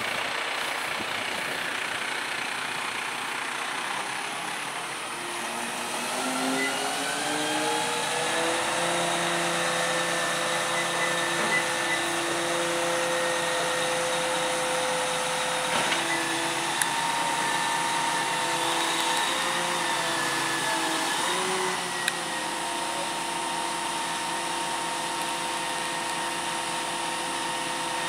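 Shingle delivery truck's engine and boom crane hydraulics running: the pitch rises about six seconds in as the engine speeds up to power the crane, then holds a steady whining tone that wavers briefly near the end as the boom moves.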